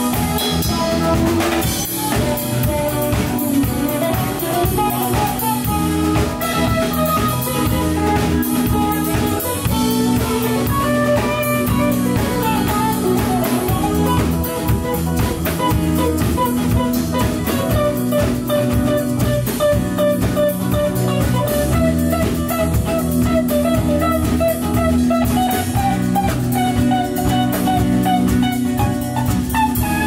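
Live jam band playing an instrumental passage: drum kit with cymbals keeping a steady beat under bass, guitars and keyboard, with a winding lead line on top.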